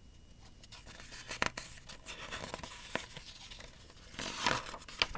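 Paper pages of a picture book rustling and crinkling as the book is handled, with a louder rustle and a sharp click near the end as a page is turned.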